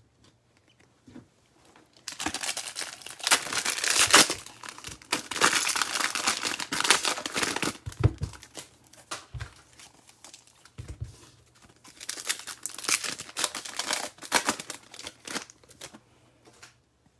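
Foil wrapper of a football trading card pack being torn open and crinkled by hand, in two spells of loud crinkling: one starting about two seconds in, the other about twelve seconds in.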